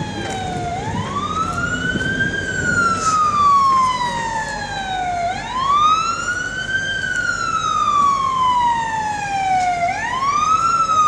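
Emergency vehicle siren wailing. Each cycle sweeps up quickly and then falls slowly, repeating about every four and a half seconds.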